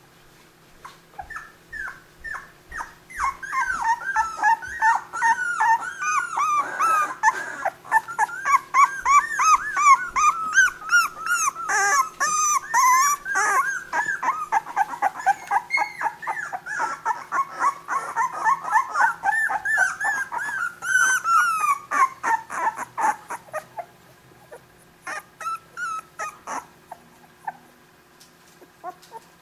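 Nova Scotia Duck Tolling Retriever puppies about two and a half weeks old whimpering and squeaking. Many short high-pitched cries follow one another quickly, thickest through the middle and thinning out near the end.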